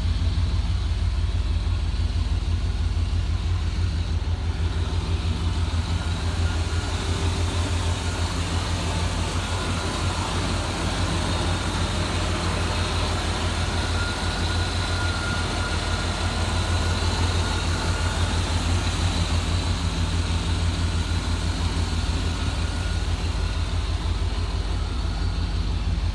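1993 GMC Sierra Z71 pickup's engine idling steadily, with an even low pulse and no revving.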